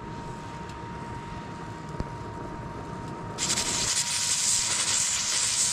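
Pressure cooker on a wood-burning camp stove venting steam through its valve: a steady hiss starts suddenly about three and a half seconds in, a sign the cooker is up to pressure. Before it, only a low rumble.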